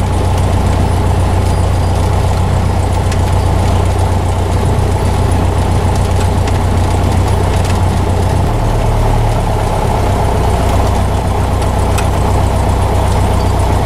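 Piston engine and propeller of a single-engine high-wing light airplane running at low taxi power, a steady drone whose pitch drops slightly about eight and a half seconds in.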